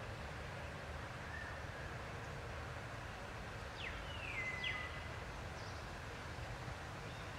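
Steady low outdoor background rumble. About four seconds in come a few short, high animal calls that sweep down in pitch, one of them drawn out briefly.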